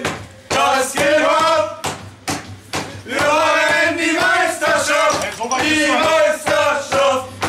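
A group of men shouting and chanting together in a celebration chant, with long drawn-out, sung notes.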